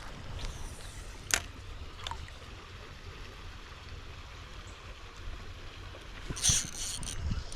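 Creek water running over a low, steady rumble, with a sharp click about a second in and a brief, louder crackling splash near the end.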